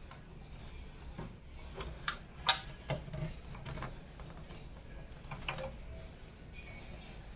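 Light, irregular clicks and taps of PC parts being handled and fitted, the sharpest about two and a half seconds in, over a low steady hum.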